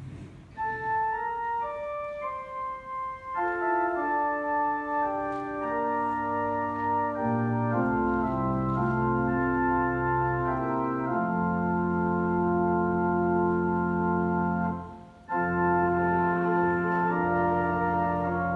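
Church organ playing the introduction to a hymn in sustained chords. It begins with a single upper line, fills out to full chords, and adds deep bass notes about eight seconds in. There is a brief break near the end before it resumes.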